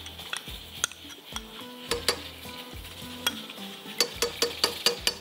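A spoon scraping condensed milk out of a small glass container into a pot of milk, with scattered sharp clinks of spoon on glass. Near the end comes a quick run of about six taps as the last of the milk is knocked off the spoon.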